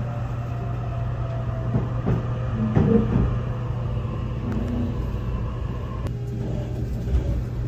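Narita Express E259-series train running slowly into a station platform, heard inside the car: a steady low hum over a rumble from the running gear.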